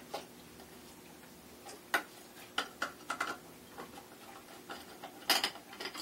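Phillips screwdriver working the screws out of a metal ceiling fan canopy: scattered small clicks and ticks of the tool on the screws and canopy, with a few sharper clicks a little after five seconds in.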